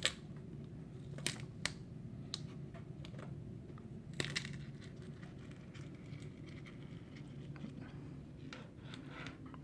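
Faint handling noise: a few light clicks and crinkles, as of drill bits and duct tape being handled, over a low steady room hum.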